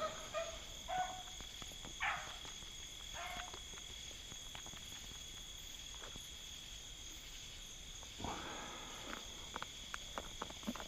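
Crickets trilling steadily, with short, faint bays from a pack of beagles running a rabbit: a few in the first seconds and more near the end.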